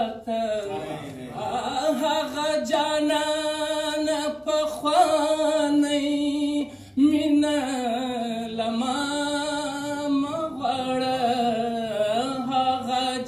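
A man's voice singing a poem unaccompanied in long held notes that slide up and down, with short pauses between phrases.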